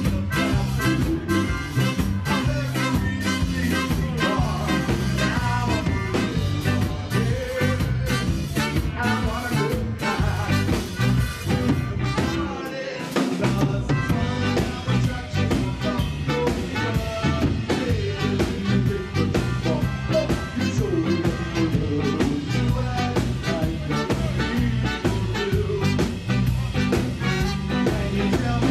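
Ska band playing live: drum kit, electric guitar, trumpet and melodica. Just under halfway through the bass and drums drop out for about a second before the band comes back in.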